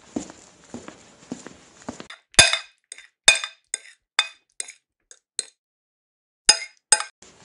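Dishes and cutlery clinking: about nine sharp, ringing clinks from about two seconds in, separated by gaps of dead silence, after a run of soft thuds at the start.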